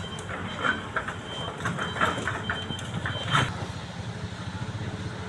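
Excavator's diesel engine running steadily while digging, with several sharp metallic clanks, the loudest about two seconds and three and a half seconds in. An intermittent warning beep sounds along with them and stops about three and a half seconds in.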